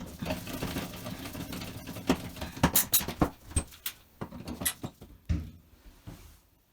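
Irregular light clicks, taps and scraping of small hard faucet parts being handled, with a few sharper clicks in the middle, dying away shortly before the end.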